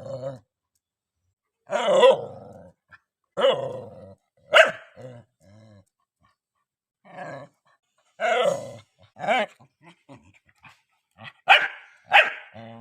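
A dog barking in single loud barks a second or more apart, coming quicker near the end.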